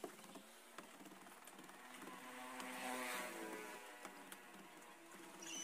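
An engine passing, rising to a peak about halfway through and then fading away. A short high-pitched chirp comes at the very end.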